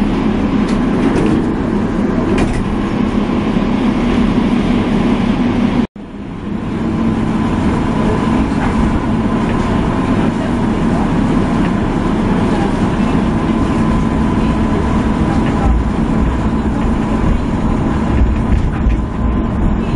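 Ride inside a moving tram: a steady rumble of wheels on rails with a low hum and a faint steady whine. The sound drops out for an instant about six seconds in.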